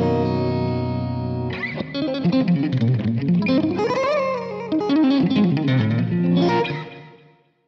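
Schecter electric guitar played through a Kemper Profiler amp: a held chord rings and fades, then a quick melodic run with bent and sliding notes, ending on a note that dies away near the end.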